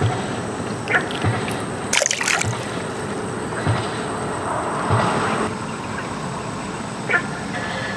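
A small splash about two seconds in as a caught crucian carp is let go back into the water. A few light knocks from handling the fish and tackle come before and after it, over a steady background hiss.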